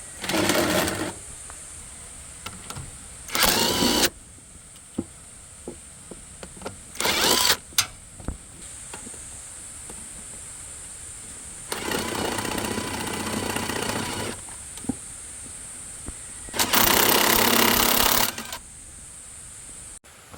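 Loud mechanical noise in five separate bursts, from well under a second to about two seconds long, with small clicks and knocks between them and a faint steady high-pitched tone underneath.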